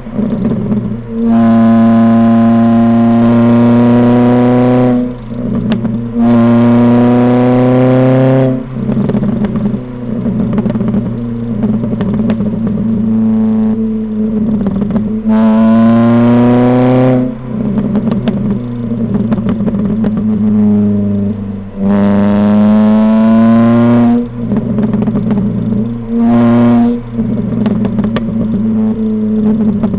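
Ford Fiesta ST150 2.0-litre four-cylinder through its modified exhaust, heard from a microphone at the rear, accelerating in four hard pulls of two to four seconds each with pitch rising, plus a short blip near the end. Between the pulls the revs drop and the exhaust pops and crackles on the overrun.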